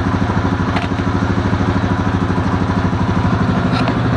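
ATV (quad) engine idling steadily with an even, rapid pulse. Two light clicks, about a second in and near the end.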